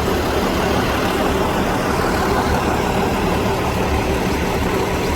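Motor vehicle engine idling steadily.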